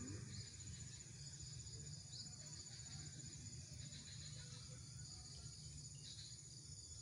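Insects trilling steadily at a high pitch in thick waterside vegetation, with a faint low rumble underneath.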